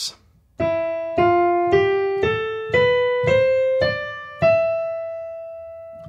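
Piano-sound keyboard playing the E Phrygian mode as a slow ascending scale: eight notes, E F G A B C D E, at about two notes a second. The top E is held and left to ring.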